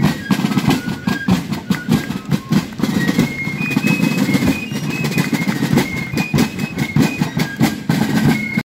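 Fife and drum corps playing on the march: fifes carry a high, stepping melody over rapid rope-tension snare drum rudiments and bass drum beats. The music cuts off suddenly near the end.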